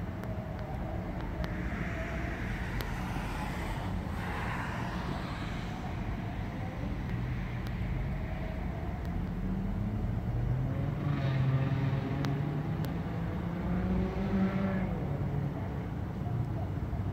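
Road traffic: a steady low engine rumble with vehicles passing. A hissing swell of tyre noise comes about two to five seconds in, and an engine note rises and fades between about ten and fifteen seconds.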